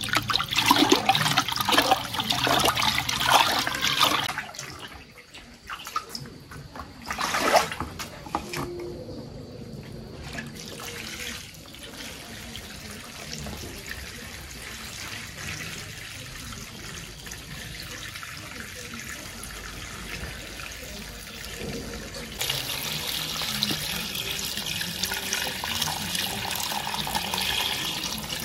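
Water splashing irregularly for the first few seconds, with another splash a few seconds later, then settling into a steady flow of running water that gets louder about two-thirds of the way through.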